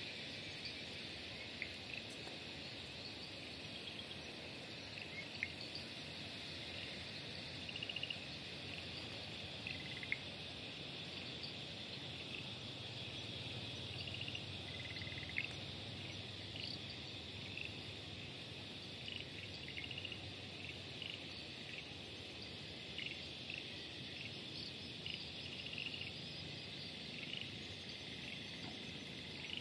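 Dusk insect chorus: a steady high-pitched trilling, with short chirps scattered through it.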